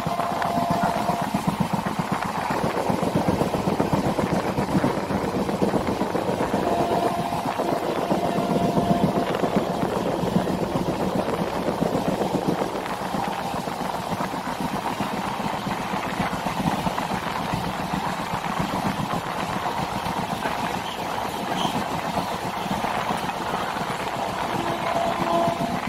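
Steady running noise inside a passenger train coach as the train moves along, with a faint high tone a few times.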